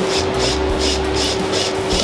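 Makita cordless drill running steadily as it bores into the end of a wooden board, with an even motor whine.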